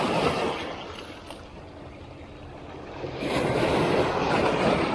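Sea waves washing at the shore with wind on the microphone: one surge fades over the first second and another swells from about three seconds in.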